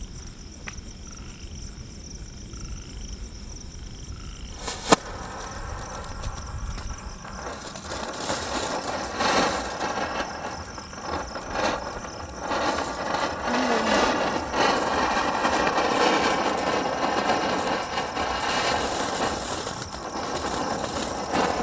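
Handheld snow-spray firework: the lit fuse fizzes quietly for about five seconds, there is one sharp pop, and then the tube sprays sparks with a steady rushing hiss that grows louder.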